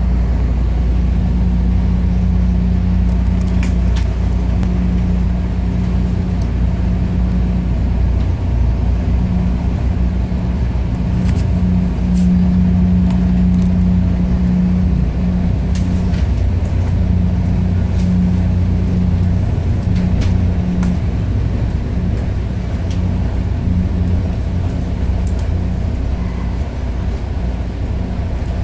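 MARC Penn Line commuter train pulling out, heard from inside a passenger coach: a steady low rumble with a humming tone that wavers. A few faint clicks come through now and then.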